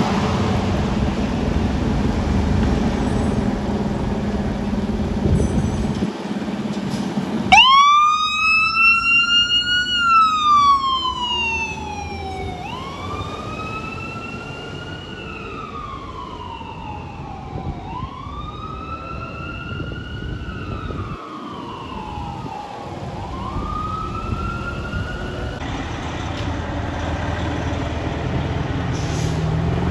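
Fire engine responding: a heavy truck engine rumbles, then about seven seconds in its siren starts, a wail that rises and falls roughly every five seconds and grows fainter.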